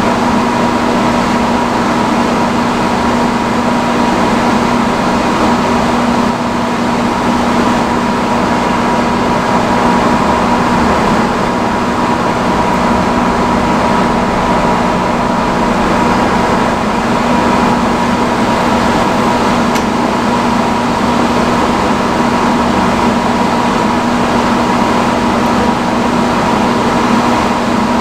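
Vintage salon chair hood hair dryer running steadily on its highest setting: a loud, even blower rush with a steady hum.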